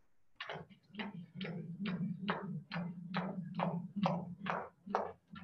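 Jump rope being skipped, the rope slapping the floor about twice a second in a steady rhythm that starts about half a second in.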